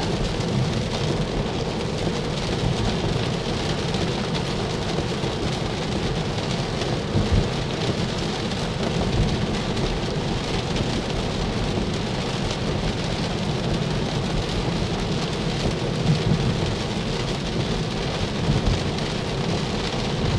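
Steady rain on a moving car, heard from inside the cabin, over a low rumble of tyres on a wet road.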